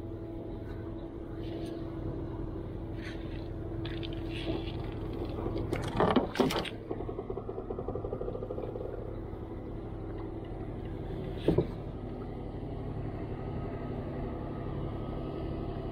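Steady hum of a boat engine running, with a short clatter of knocks about six seconds in and a single knock near eleven and a half seconds.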